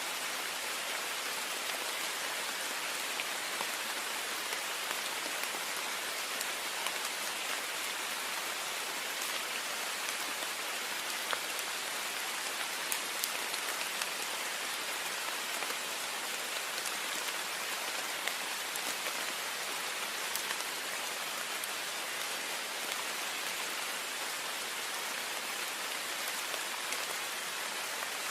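Heavy rain falling steadily on a window, a dense even hiss with many small drop ticks.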